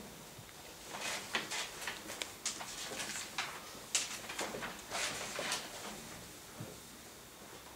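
Sheets of printed paper rustling and crackling as pages are leafed through, a quick run of short rustles from about a second in until about six seconds.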